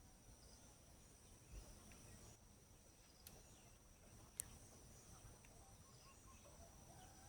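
Near silence with faint, steady, high-pitched insect trilling, like crickets, and two faint clicks about three and four seconds in.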